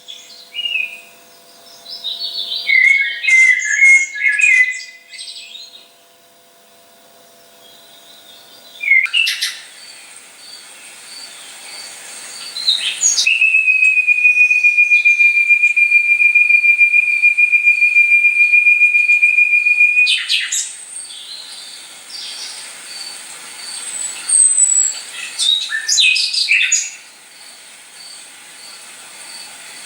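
Recorded owl calls played through a speaker: scattered short high calls, and in the middle one long, steady, high trill lasting about seven seconds.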